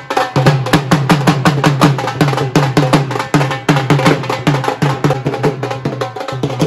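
Dhol drum played with sticks in a fast, steady rhythm. Deep bass strokes come about four a second, with sharp treble strikes in between.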